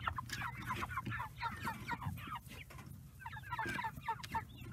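A crowded flock of Jumbo Cornish Rock broiler chickens calling, many short calls tumbling over one another, with a brief lull just past the middle.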